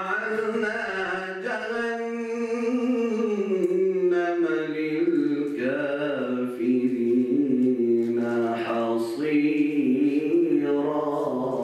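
A man's solo Quran recitation in the melodic chanted style: one long phrase sung on held, gliding notes with ornamented turns, briefly catching breath twice in the second half.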